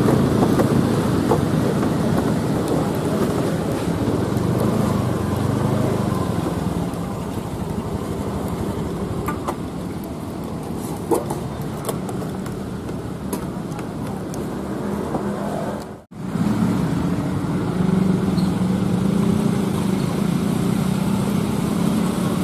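Honda motor scooter's engine running under road and wind noise as it is ridden, giving way to steady street traffic of motorcycles and other vehicles idling and passing. The sound drops out for a moment about 16 seconds in.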